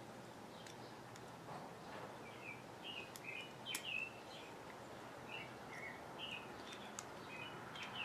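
Faint bird chirping: a string of short, high chirps starting about two seconds in, over low room noise, with a few light clicks.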